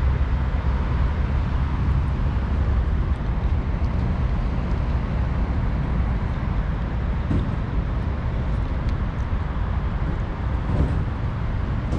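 Steady low rumble of city street traffic, with a few faint ticks.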